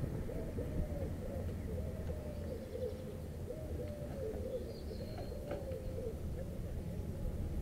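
Pigeons cooing: a run of short, rising-and-falling coos that stops about six seconds in, over a steady low background rumble.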